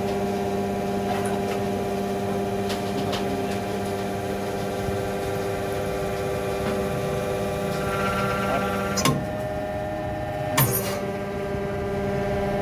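Hydraulic baling press running: a steady machine hum from its motor and pump. A higher tone joins about two-thirds of the way through, followed by two sharp metallic knocks about a second and a half apart.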